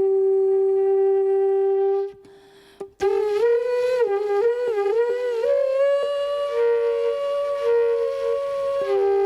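A flute-like wind instrument holds one note, breaks off for about a second, then plays a short melody of changing notes with some wavering, and settles back on the first held note near the end.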